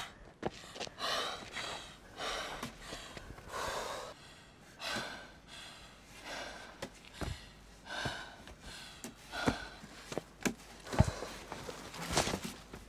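Heavy, strained breathing and gasps, repeating every second or so, with a few sharp knocks and rustling: a child clinging to a tree trunk struggling as he is pulled off it.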